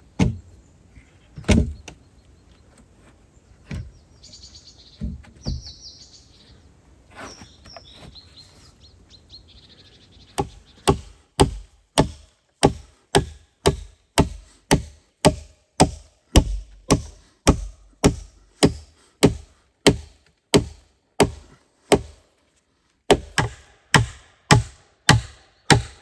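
Hammer blows driving nails into a log frame: sharp, evenly spaced strikes at about one and a half a second, beginning about ten seconds in, with a short pause near the end. Before that come a few single knocks of logs being handled and some bird chirps.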